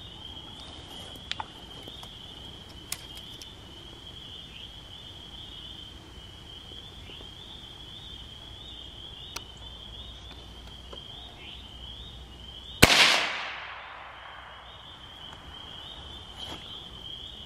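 A single .22 Magnum rifle shot, a sharp crack about thirteen seconds in, followed by an echo that fades over about a second.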